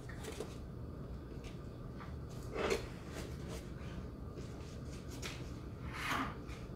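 Faint rustling and light knocks of someone moving about a small room, with two short soft noises about two and a half and six seconds in.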